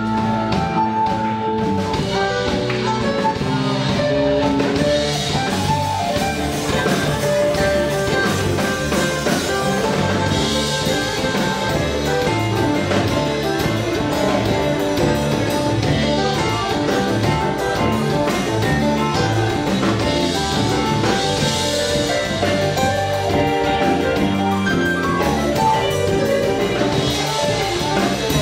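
Live band playing an instrumental passage: electric bass, guitar and a drum kit, with cymbal crashes swelling up several times.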